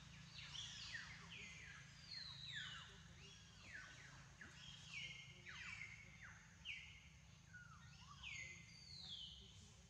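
Chorus of birds calling: many overlapping quick whistles, each sliding down in pitch and sometimes levelling off, several a second, over a faint low steady rumble.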